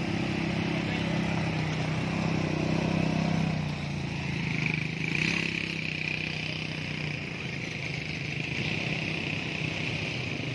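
Several ATV (quad bike) engines idling together, a low steady engine note that is loudest in the first few seconds and fades about four seconds in.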